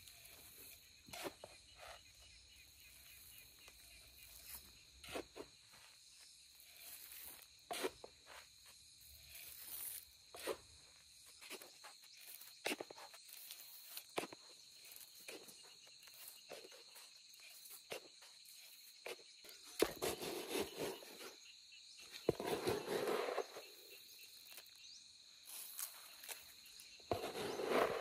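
Footsteps in rubber boots on loose, freshly tilled soil, with a steady high insect trill behind. Louder rustling, scraping noises come about two-thirds through and again near the end.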